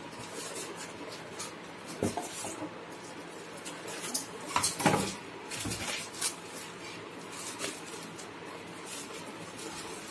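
Packing being pulled off a room heater: polystyrene foam pieces and plastic wrap rubbed and handled, rustling and crinkling, with sharp knocks and clicks that are loudest around five seconds in.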